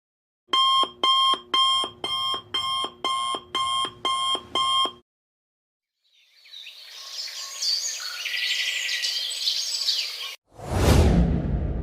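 Alarm clock beeping, about nine sharp pitched beeps at roughly two a second, stopping about five seconds in. After a pause a hissing noise swells up and cuts off suddenly, and a loud deep boom begins near the end.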